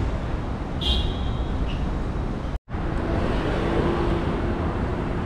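Steady road traffic noise, with a faint steady hum in its second half and a split-second dropout about halfway through.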